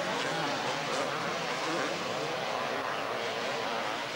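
Several two-stroke motocross motorcycle engines revving, their pitch rising and falling as the riders work the throttle.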